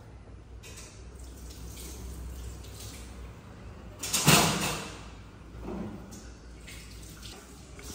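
Water running and splashing in a kitchen sink as someone washes up, with a louder burst of noise about four seconds in that fades over about a second.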